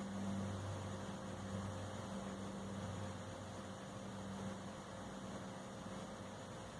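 A steady low droning hum with a thin higher tone over a hiss; the deepest part of the hum fades about a second and a half in. This is the unexplained night-time noise, which the recordist likens to a jet aircraft turbine.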